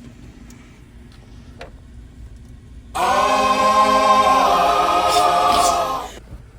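A choir of voices holding one loud sustained 'aah' chord for about three seconds. It starts abruptly about three seconds in, shifts slightly partway through, and cuts off sharply.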